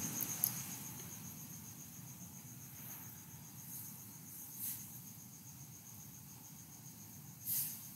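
Faint room noise under a steady, evenly pulsing high-pitched trill, with a short soft rustle about halfway through and a slightly louder one near the end.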